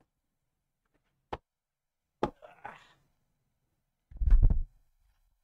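Handling noise from a boom-arm microphone being moved: two sharp clicks and a little rustle, then a loud, deep thump about four seconds in.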